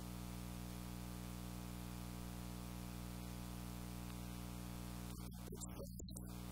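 Steady electrical hum with an even layer of hiss, holding unchanged with no distinct events.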